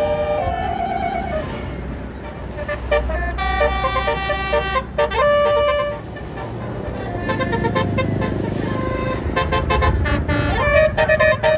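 Tour bus's Basuri telolet horn, a multi-tone air horn, playing a melody of quick short notes and longer held tones over the bus's engine running. The notes come fastest near the end, then settle into one long held tone.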